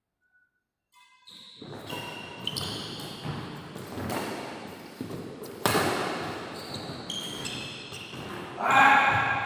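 Badminton rally in a large echoing hall: rackets strike the shuttlecock with sharp hits, the strongest just past the middle, amid players' footwork on the court. It starts about a second in after near silence.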